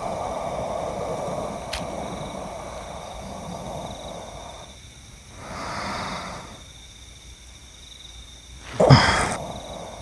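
A man's hoarse, forceful breaths: a drawn-out breathy exhalation about six seconds in and a sudden, louder grunting exhalation near the end.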